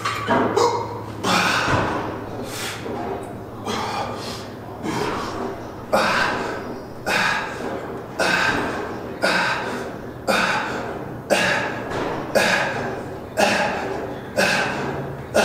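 Heavy, forceful breathing: short, sharp exhales that settle into a steady rhythm of about one a second from about six seconds in.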